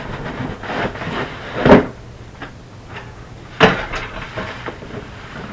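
A plastic roof vent fan unit and its packaging being handled and shifted about, with rustling and light rattling, and two sharp knocks, one near two seconds in and a louder one about three and a half seconds in.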